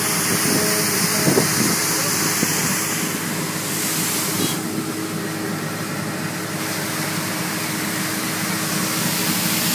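Street sweeper truck running: a steady engine hum under a broad, even hiss, the hiss easing for a couple of seconds midway.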